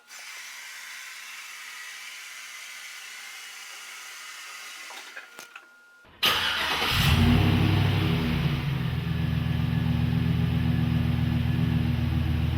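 A faint steady hum with a few small clicks, then about six seconds in the 2010 Chevy Silverado 1500's engine starts abruptly and settles into a steady idle through its exhaust.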